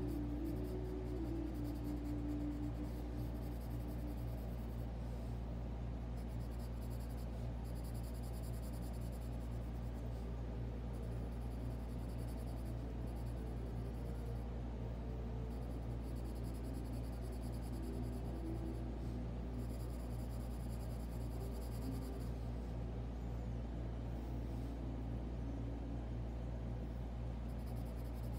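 Pencil shading strokes on sketchbook paper: a soft scratching that comes and goes with each stroke. Quiet background music and a steady low hum sit underneath.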